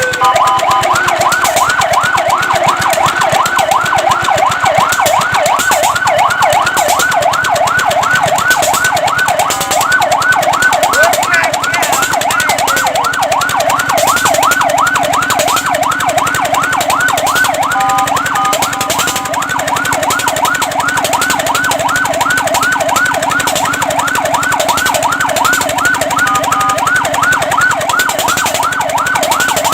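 Fire truck siren wailing in a fast yelp, about three to four rising-and-falling sweeps a second. A few times it briefly switches to a steady, horn-like tone before the yelp resumes.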